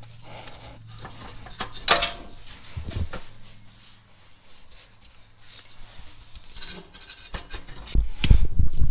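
Rubbing and scraping of gloved hands working on the exhaust pipe under a car, with scattered clicks and knocks. Near the end comes a burst of heavy, low thumping and bumping, the loudest sound.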